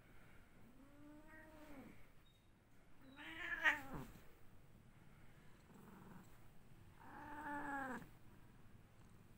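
Domestic cat meowing: three long meows, each rising and then falling in pitch, the second the loudest, with a faint short one just before the last.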